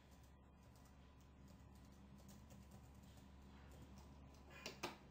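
Faint computer keyboard typing, scattered keystrokes, with a louder cluster of two or three clicks near the end.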